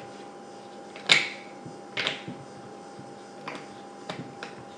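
A few sharp clicks and knocks from hands working the stock and cheek comb of a Hatsan Blitz air rifle, the loudest about a second in. A faint steady hum runs underneath.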